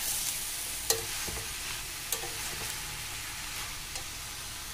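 Chicken and chopped banana stem frying with a steady sizzle in a steel pot while a metal spoon stirs them. The spoon knocks sharply against the pot a few times.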